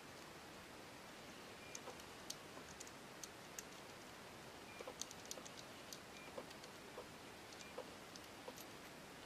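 Faint, irregular small clicks and ticks of brass lantern parts handled in the fingers as the threaded pressure-release screw of an Optimus 1200M kerosene lantern is turned out of its fitting, over a low steady hiss.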